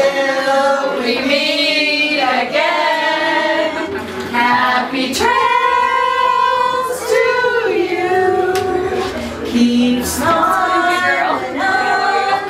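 A group of party guests singing together without accompaniment, mostly women's voices, with some long held notes.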